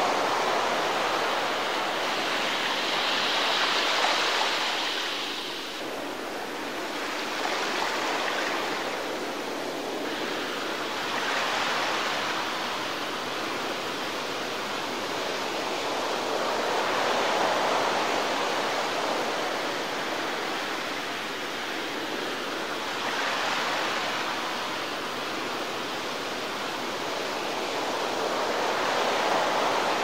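Small waves breaking and washing up a sandy beach: a steady rush of water that swells and eases about every five or six seconds.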